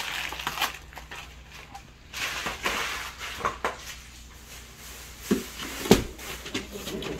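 Gift wrapping paper and packaging rustling and crinkling as presents are handled, with a sharp thump about six seconds in.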